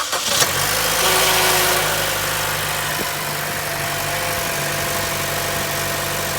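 2013 Chevy Cruze engine starting cold, with a brief rattle for the first second or so after it catches, then settling into a steady idle. The owner traced the startup rattle to an oil filter without an anti-drain-back valve, which lets oil drain back so pressure takes a moment to build.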